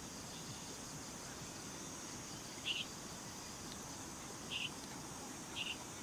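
Evening outdoor ambience beside a wood-burning camp stove: a steady soft rush of noise, with three short high chirps from a small animal, about two and a half, four and a half and five and a half seconds in.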